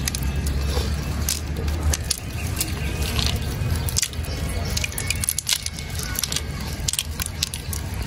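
Wet cast net being pulled and shaken over a pile of small fish and snails on mud: continuous rustling with many small crackles and clicks, over a low rumble.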